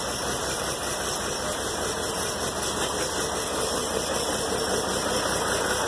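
Old wheel loader's diesel engine idling steadily just after a cold start, run cold without its block heater or ether.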